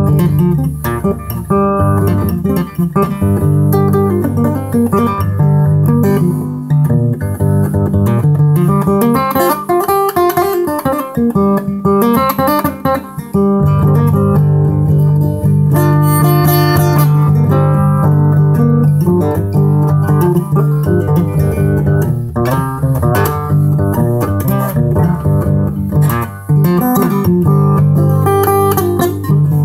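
Solo acoustic guitar improvising in a blues, raga-like style: a low bass note drones under picked melody lines, with notes sliding in pitch about a third of the way through.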